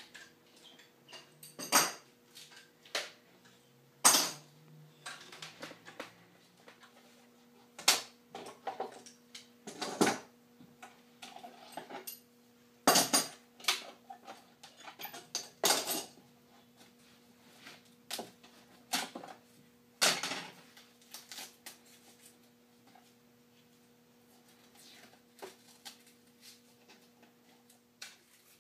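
Steel C-clamps being unscrewed and taken off a glued board, clanking and clinking as they are set down one after another on a wooden workbench. The sharp clanks come irregularly and thin out over the last several seconds.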